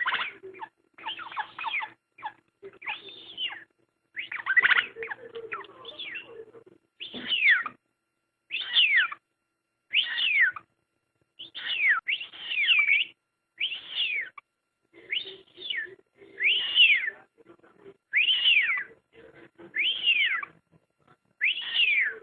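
Pet rosella parrot whistling a copied whistle: a few scratchy, chattering notes at first, then a long series of clear whistles, each rising and then falling, repeated about once every second or so.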